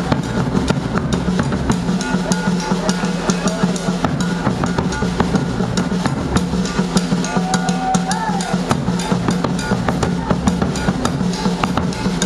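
Live Brazilian percussion: a large bass drum and other drums playing a fast, dense, steady groove. A short sliding pitched tone rises and falls about two-thirds of the way through.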